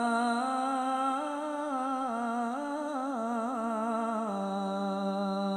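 A singer in an Arabic sholawat devotional song, drawing out a wordless melismatic run that wavers up and down, then settling onto a long held note about four seconds in.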